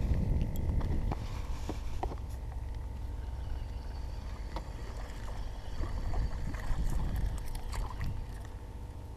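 Low wind rumble on the microphone and water against a canoe hull, with scattered small clicks and knocks from handling a spinning rod and reel, a cluster of them around seven to eight seconds in.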